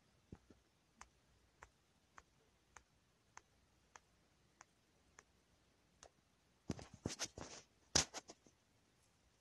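Light clicks at an even pace, a little under two a second, then a cluster of louder knocks and rustling from a handheld phone being moved, loudest about eight seconds in.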